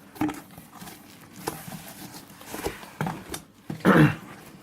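Handling of a boxed plastic tool case and its packaging: scattered light clicks and knocks, with a louder rustle or thump near the end.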